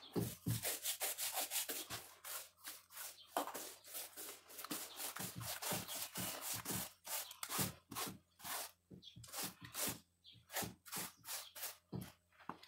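Paintbrush bristles scrubbing paint onto a wall in quick back-and-forth strokes, about two to three strokes a second.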